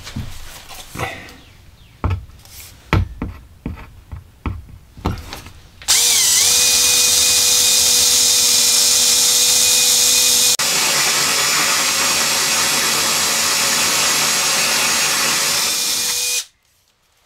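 A cordless drill spins up with a short dip in pitch and runs steadily with a whine, cutting a hole with a hole-cutting bit into the 3/4 inch plywood bottom of a cabinet. There is a brief break a little past halfway, and it stops abruptly near the end. Before it starts there are a few knocks and clicks as the drill is handled and set against the wood.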